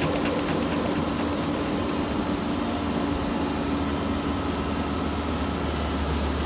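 Bobcat compact excavator's diesel engine running at a steady speed, a constant hum with a low rumble underneath.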